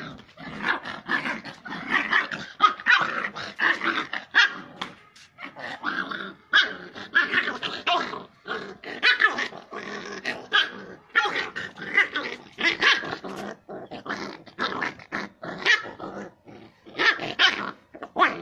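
Young pit bull growling and barking in rapid, repeated bursts while biting and tugging at a wooden stick in play.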